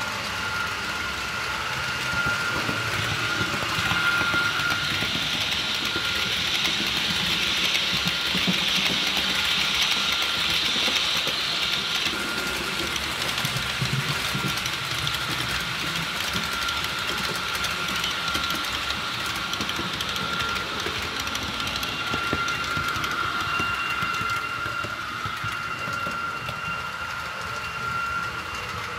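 H0-scale model train running along the layout track: a steady high motor whine with a rushing sound of wheels on rails, louder through the first half of the passage.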